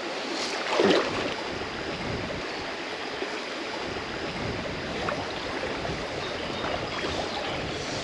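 Shallow river riffle flowing over stones in a steady rush close to the microphone, with a brief louder swish just before a second in.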